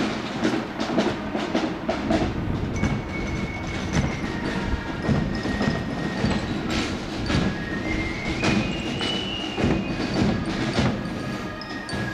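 A marching band parading past, its drums beating a steady march rhythm. Thin, high held tones come and go over the beat.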